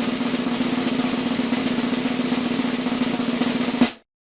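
Snare drum roll sound effect, a fast and even rattle, ending with one sharp hit near the end before cutting off.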